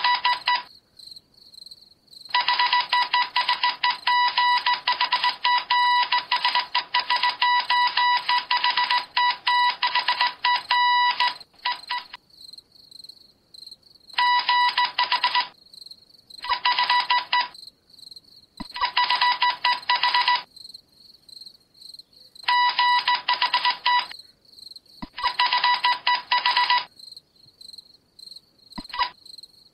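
An electric bell ringing in bursts of uneven length: a brief ring, then one long ring of about nine seconds, then several shorter rings of one to two seconds with gaps between them.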